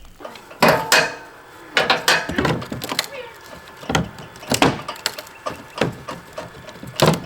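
Old wood siding being pried and broken off a house wall: a run of sharp wooden knocks and cracks, irregular and roughly a second apart.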